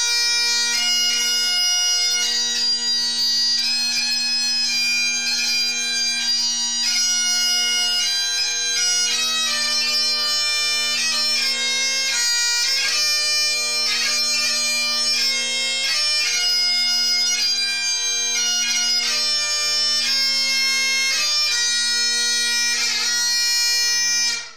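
Scottish bagpipes playing a tune: a steady drone held under a chanter melody that moves from note to note. The playing cuts off suddenly near the end.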